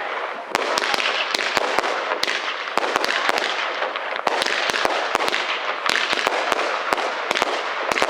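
Fireworks going off: a continuous crackling hiss with many sharp cracks in quick irregular succession, several a second.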